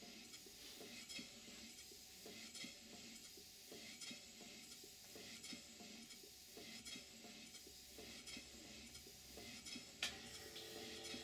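Large horizontal model steam engine running smoothly, faint with soft regular ticking from its motion. There is a sharper click about ten seconds in, after which a faint steady hum comes in.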